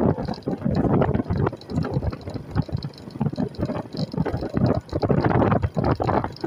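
Wind buffeting the microphone in irregular gusts.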